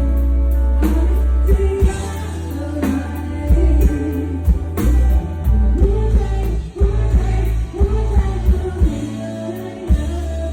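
A singer performing a Thai-language song live with a band: a sung melody over bass and drums.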